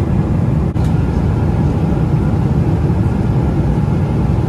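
Boeing 777 passenger cabin noise in flight: a steady low rush of the jet engines and airflow, with a momentary break under a second in.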